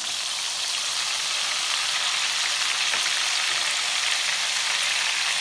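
Raw nendran banana slices deep-frying in a kadai of hot oil: a steady, dense sizzle of bubbling oil flecked with fine crackles. The oil is still bubbling hard because the slices are still giving up moisture and are not yet cooked crisp. The sizzle dies down once they are done.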